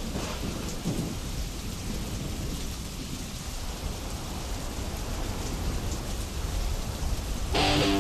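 Thunder rumbling low and continuously over steady rain. Music comes in just before the end.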